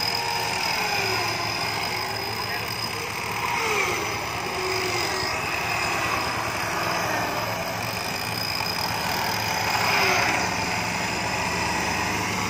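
An off-road 4x4's engine running at low revs as the vehicle crawls through deep mud, with people talking over it.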